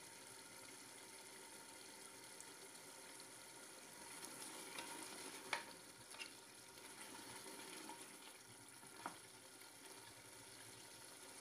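Mutton frying in ghee and masala in a metal pot, a faint steady sizzle while a wooden spoon stirs it, with a few light clicks of the spoon against the pot. This is the bhuna stage, the meat being browned in the fat.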